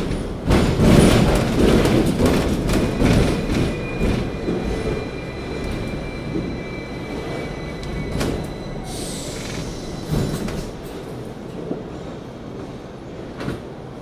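Hong Kong double-decker electric tram heard from on board, rumbling along its rails with clacks over the track and a thin high wheel squeal, growing quieter as it slows to a stop; a short hiss about nine seconds in.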